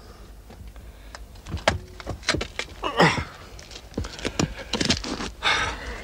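Irregular knocks, scrapes and scuffs of hands and boots against granite boulders, about a dozen sharp hits spread unevenly with short rasping scrapes between them.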